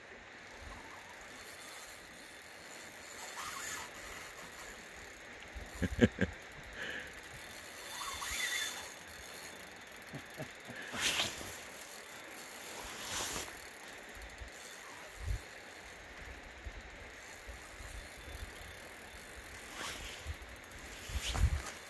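Spinning reel clicking and whirring in short bursts every few seconds while a hooked steelhead is played on a float rod, with a cluster of sharp knocks about six seconds in.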